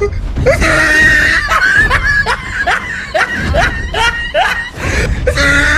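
Loud laughter: a string of short, rising voiced yelps, about two a second.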